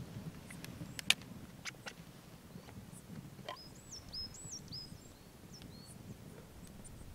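A bird calling with short whistled notes that swoop up and then down, four or five in a row around the middle. A few sharp clicks and clinks of a glass bottle and a metal pan lid being handled, the loudest about a second in.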